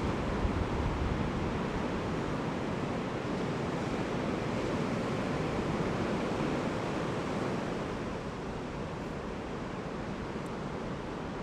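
Surf washing onto a sand beach, with wind buffeting the microphone: a steady rushing noise, heavy at the low end, that eases slightly about two-thirds of the way in. The microphone gain is set too high, so the sound is distorted.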